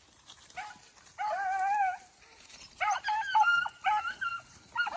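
Rabbit-hunting beagles baying on a rabbit's scent: one long drawn-out bay about a second in, then a run of shorter bays.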